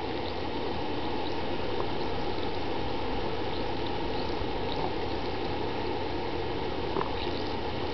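HHO electrolysis cell in a glass jar of electrolyte fizzing steadily as it gives off hydrogen and oxygen gas, with a few faint small pops.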